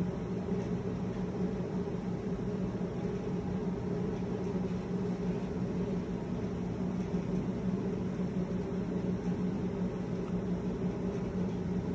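A steady mechanical hum with an even hiss, unchanging throughout, with no speech.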